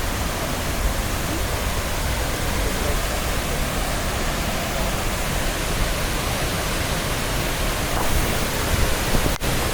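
A waterfall's steady, loud rush of falling water at close range, with a very brief break in the sound near the end.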